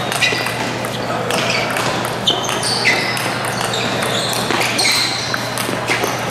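Table tennis rally: the ball clicking in quick, irregular succession off the paddles and the table, over a steady low hum and the murmur of a crowded hall.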